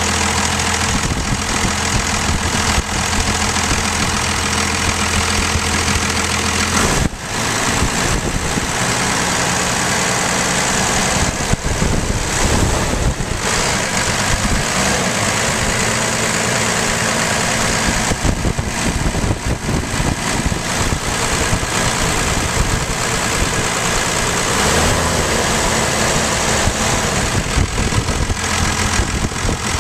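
Cummins 12-valve 5.9-litre turbo-diesel inline-six running steady and strong, heard close up under the open hood. Its low note changes about seven seconds in and again around twenty-five seconds.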